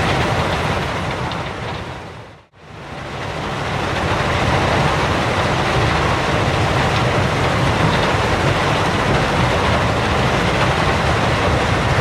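Gravel pit ambience: a steady, dense mechanical rumble with hiss. It fades out to silence about two and a half seconds in, then fades back up and runs on evenly.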